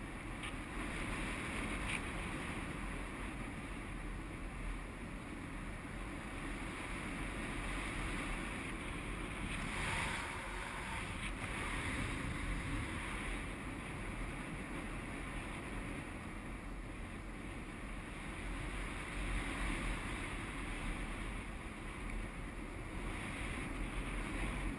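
Steady rush of flight airflow over the microphone of a GoPro HD 960 on a paraglider pilot in flight, swelling a little now and then.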